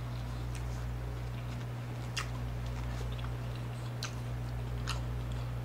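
Chewing a large mouthful of sushi roll: a few faint, soft mouth clicks over a steady low hum.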